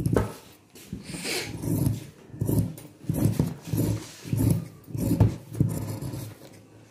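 Large steel tailor's shears cutting through a layer of fabric on a table: a steady run of snips, about one every two-thirds of a second.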